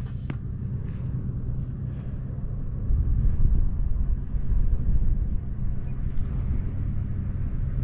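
Off-road 4x4 driving on a rough trail: a steady low engine and tyre rumble that grows louder about three seconds in.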